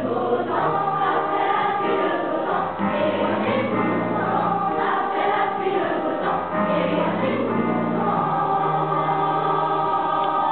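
Children's school choir singing a song in chorus, many voices sustaining the melody, with piano accompaniment.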